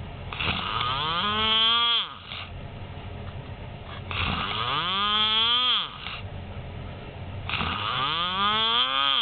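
Loud snoring: three long drawn-out snores about three and a half seconds apart, each rising in pitch and dropping off at its end, a sound likened to a weed trimmer or a chainsaw.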